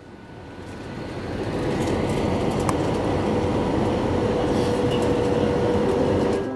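Jet airliner cabin noise during landing: a steady rumble of engines and rushing air with a steady engine tone. It grows louder over the first couple of seconds, then holds.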